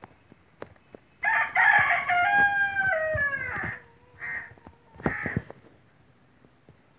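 A rooster crowing once, a long call of about two and a half seconds that steps down in pitch at the end, starting about a second in. Two short calls follow.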